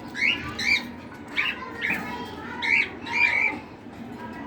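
Small pet parrots, cockatiels and lovebirds, squawking in a cage: about six short, harsh calls that sweep upward in pitch, loud and unevenly spaced.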